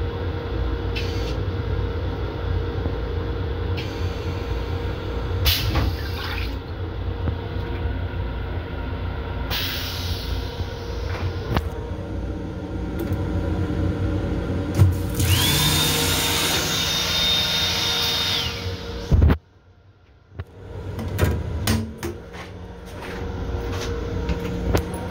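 Toilet in a Long Island Rail Road M7 railcar restroom flushing: a rush lasting about four seconds past the middle, carrying a steady high whine, over the continuous low rumble of the train. Scattered clicks and knocks come around it, and the sound drops away abruptly for about a second near the end.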